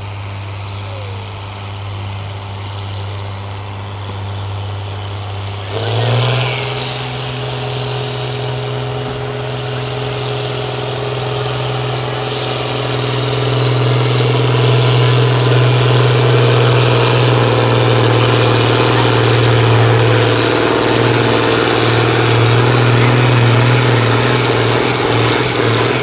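John Deere farm tractor's diesel engine running at low revs, then revved up sharply about six seconds in and held at full throttle as it pulls a weight-transfer sled under heavy load. After that the engine note stays steady and loud.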